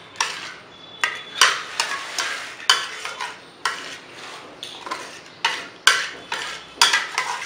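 A spoon stirring thick rabri in a steel pan, scraping against the metal in uneven strokes, roughly one or two a second.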